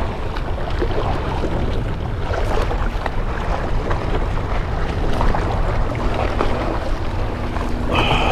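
Wind buffeting the microphone over the wash of sea waves against rocks: a steady rushing noise. A low steady hum joins in near the end.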